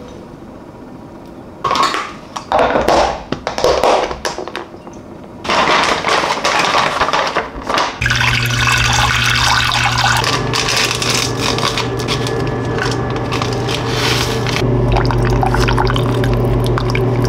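Water poured from a kettle into a saucepan, over a steady low hum that starts about halfway through. Before that, short bursts of rustling and clinking as rice is mixed in a glass bowl.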